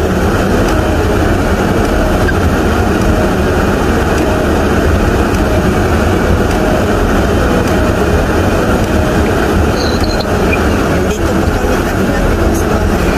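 Steady cabin noise of a car driving on a snow-covered road: engine and tyre noise heard from inside the car.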